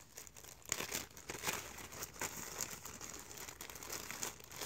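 Clear plastic bag crinkling as it is handled and squeezed in the hands, in irregular crackles.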